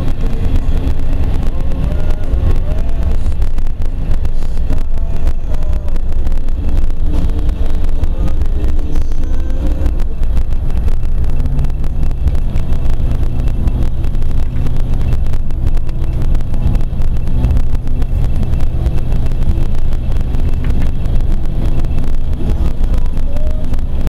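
Car driving on a snowy road: a steady, loud low rumble of road and engine noise, joined by a steady low engine hum from about halfway through.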